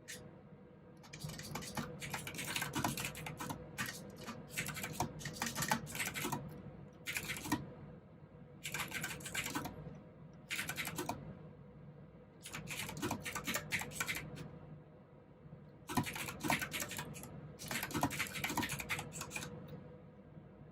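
Clicky mechanical keyboard with blue switches, typed on in runs of rapid keystrokes. The runs last one to three seconds each, with short pauses between them.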